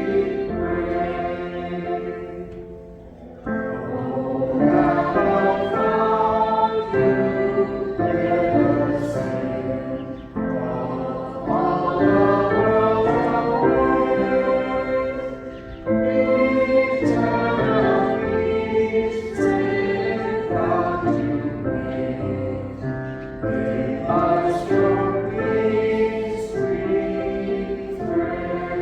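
Church choir singing a slow sacred piece in sustained, overlapping voices.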